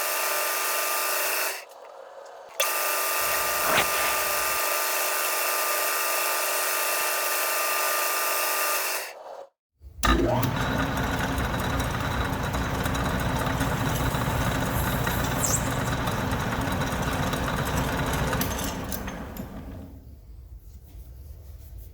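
Machine-shop power tool running steadily with a whine, briefly interrupted. After a cut, a heavier machine runs and then dies away near the end, as a motor does when it spins down.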